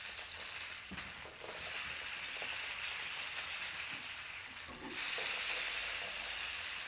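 Rain stick being tipped, its beads pouring down inside it in a steady hissing patter that imitates running water. The pour eases about a second in and starts afresh, louder, about five seconds in as the stick is turned over again.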